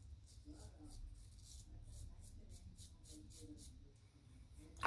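Shavette blade scraping through neck stubble in short, quick strokes, about four a second, faint and scratchy; the strokes stop a little before four seconds in.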